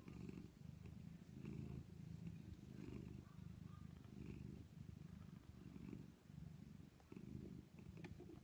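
Domestic cat purring softly: a low purr that swells and fades with each breath, about once a second, from a mother cat and her nursing kittens.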